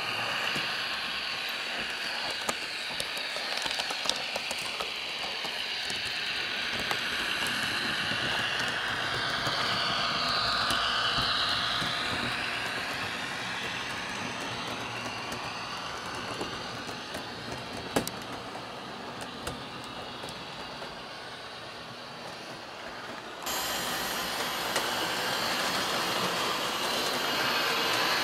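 Roco H0-scale TEE RAm 'Edelweiss' diesel railcar model running along its track, its ESU sound decoder playing a diesel engine sound through the onboard speaker. The sound is steady with a few light clicks and gets abruptly louder about 23 seconds in.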